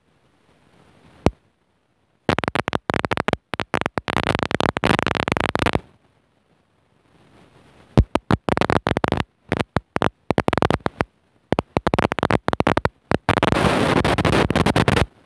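Harsh rushing and scraping noise on the microphone, coming in loud stretches that repeatedly cut out abruptly to dead silence and back.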